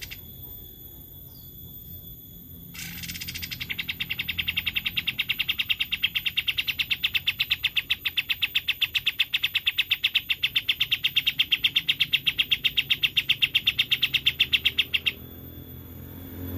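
A songbird singing one long, rapid, even trill of repeated high notes that starts about three seconds in, swells in loudness and cuts off abruptly about fifteen seconds in.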